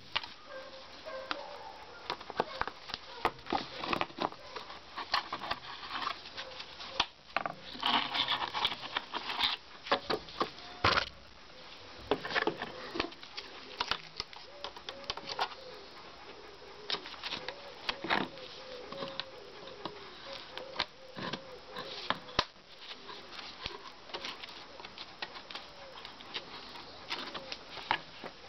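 Irregular plastic clicks, knocks and rustling as gloved hands handle a PVC rain-gutter section and fit plastic gutter hooks onto it.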